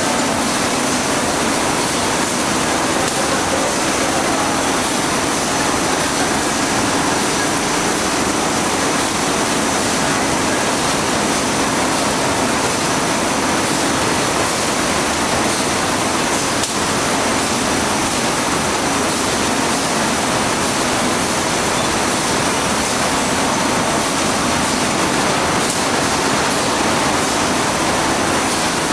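PE protective film coating machine running: a steady rushing noise with a faint hum under it.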